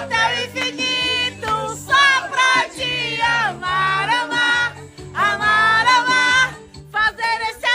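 A voice singing a sustained, sliding melody over live band accompaniment with a steady bass line.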